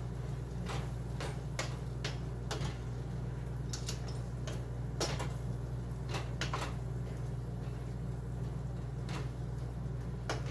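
A utensil stirring food in a stainless steel pot, with irregular scrapes and taps against the pot's rim and sides, over a steady low hum.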